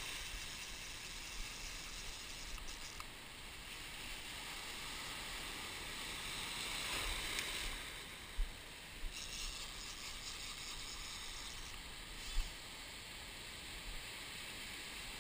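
Surf washing through shallow water as small waves break, swelling louder for a couple of seconds about halfway through. A few dull thumps stand out, the sharpest about eight seconds in and another about twelve seconds in.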